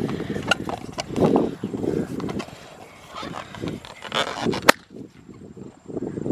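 A small rubber balloon popping once with a single sharp bang a little under five seconds in, the loudest sound here. Rustling and breath noises come before it.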